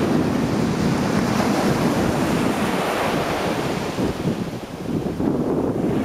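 Small waves breaking and washing up a flat sandy beach, a steady surf wash that swells and ebbs, with wind rumbling on the microphone.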